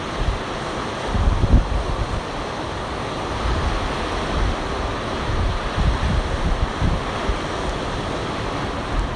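Ocean surf washing up the beach as a steady rushing noise, with wind buffeting the microphone in uneven low gusts.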